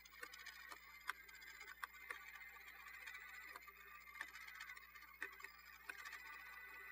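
Faint, irregular clicking over a faint steady whir from the gears of a Radio Shack Armatron robot-arm toy as its joysticks are worked.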